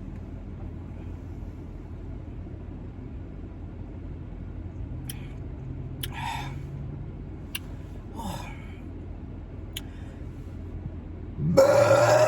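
A loud belch, about a second long, near the end, brought up by the carbonated soda she is drinking. Under it runs the steady low hum of a car interior, with a few faint clicks.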